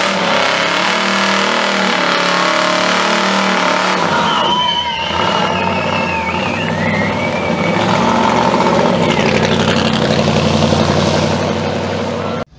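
Car doing a burnout: the engine is revved hard while the rear tyres spin and squeal on the asphalt, with a wavering high-pitched squeal a few seconds in. The sound cuts off suddenly near the end.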